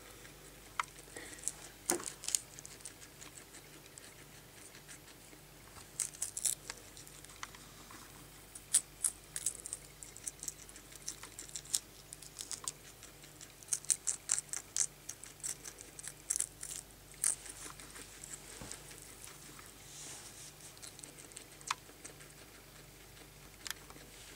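Guinea pig nibbling and chewing a green leaf: bursts of quick, crisp little crunches with pauses between.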